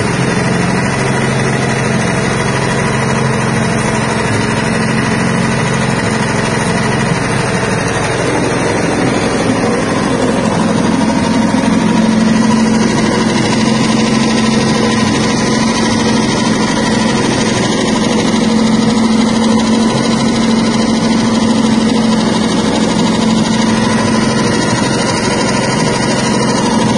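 Stainless-steel soybean dehulling machine running steadily as soybeans pass through and their skins are stripped off. It gives a steady motor hum that gets a little louder about eleven seconds in.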